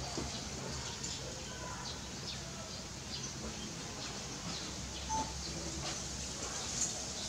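Faint scattered bird chirps over a steady low hum.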